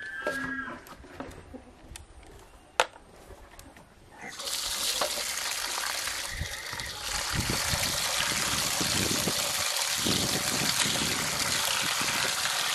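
Water running from a tank's tap into a metal basin of rice while hands swish and rub the rice to rinse it. The flow starts about four seconds in, after a single sharp click, and then runs steadily.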